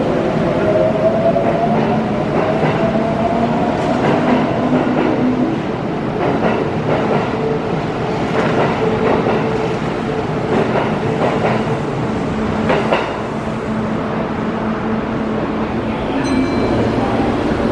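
Kintetsu electric train pulling out and picking up speed, its motor whine rising in pitch over the first few seconds, then wheels clicking over rail joints as the cars pass. Near the end, steady high-pitched tones come in.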